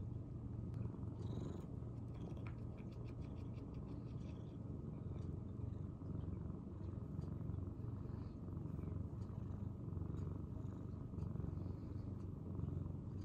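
Domestic cat purring steadily, a low continuous rumble close to the microphone.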